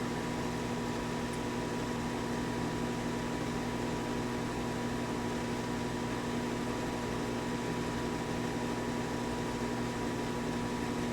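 Midland WR-120 weather radio's speaker playing dead air after the broadcast: a steady hiss with a low hum and a faint thin tone, unchanging throughout.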